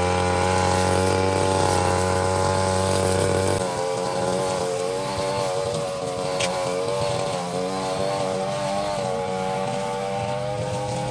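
Brushcutter engine running at high revs. A few seconds in, its deepest hum drops away and the pitch starts to waver up and down.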